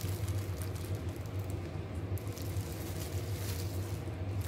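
Soft wet squishing and rustling from hands in a plastic glove folding and pressing a soaked towel, over a steady low hum.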